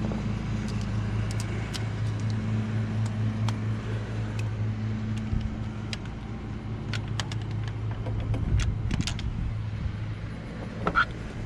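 Scattered light metallic clicks and clinks of a socket wrench and swivel being fitted and worked on a thermostat housing bolt, over a steady low hum.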